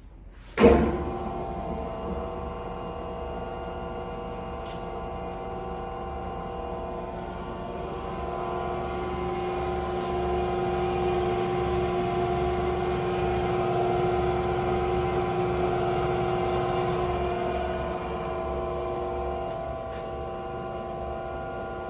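Stokes chocolate panning machine switched on: its three-phase electric motor starts with a sudden loud jolt about half a second in. It then runs with a steady hum of several tones, driving the stainless steel pan through a V-belt and pulley. The hum swells a little through the middle.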